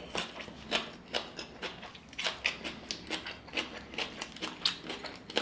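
A raw jalapeño pepper being bitten and chewed close to the microphone: irregular crisp crunches, several a second.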